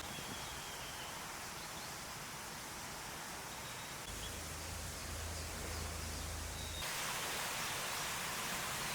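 Forest ambience with a mountain stream: a steady, even rushing hiss. A faint low hum runs from about four seconds in to nearly seven, and the hiss gets louder at about seven seconds.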